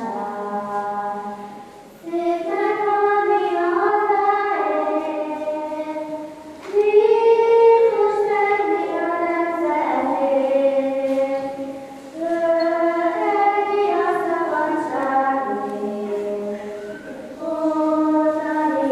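Children's choir singing held notes in phrases, with short breaks for breath about every five seconds.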